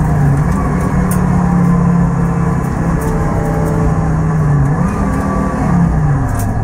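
Car engine heard from inside the cabin while driving, holding fairly steady revs with small rises and dips in pitch, then falling to a lower note near the end, over a steady rush of road and wind noise.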